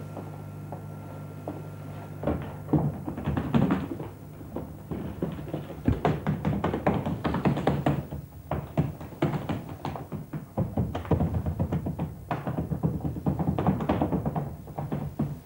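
A low steady hum that stops about two seconds in, then quick, irregular knocks and taps in dense runs: dancers' bare feet and bodies striking the stage floor.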